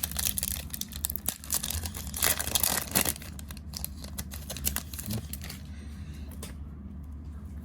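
Panini Prizm trading-card packs and cards being handled: foil wrappers crinkling and cards rustling in a run of irregular bursts that die away after about five seconds, leaving a low hum.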